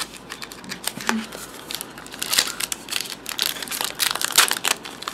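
Trading card pack wrapper crinkling and tearing as it is ripped open, in a run of irregular crackles that gets busier and louder about halfway through.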